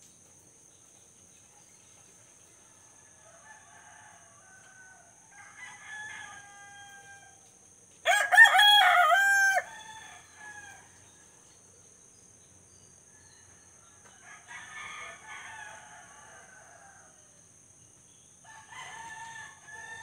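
Roosters crowing. One loud crow comes about eight seconds in and lasts about a second and a half, with fainter crows from roosters farther off before and after it.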